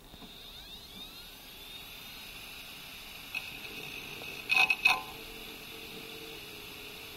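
Hard disk drive with its cover off spinning up: the spindle motor's whine rises in pitch over the first second or two, then holds steady and high. About four and a half seconds in, the read/write head arm swings out over the platter with a short, loud buzzing clatter.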